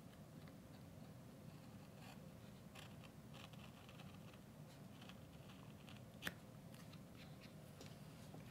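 Faint, short scratchy cuts of a hobby knife blade slicing into a basswood wing blank through its glued-on paper pattern, cutting in the feather lines. Several brief strokes, with one sharper click about six seconds in.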